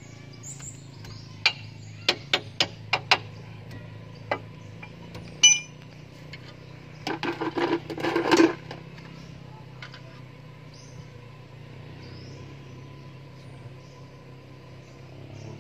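Metal hand tools clinking and knocking on the van's wheel-hub and suspension parts. A run of sharp single taps comes first, one of which rings briefly, then a quick cluster of louder knocks about halfway through, over a steady low hum.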